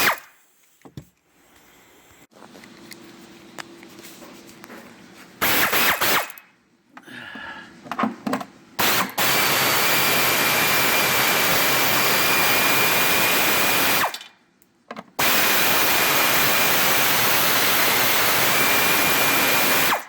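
Power drill/driver backing out the 10 mm bolts that hold a tail light assembly. It gives a brief burst, then runs in two long steady spells with a high whine, with quiet handling between.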